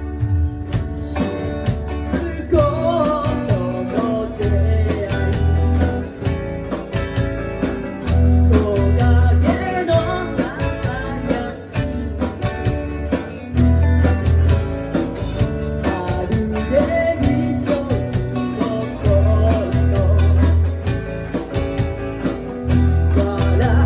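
Live band playing a song: a singer over guitar, bass and drums, with the vocal coming in about two seconds in.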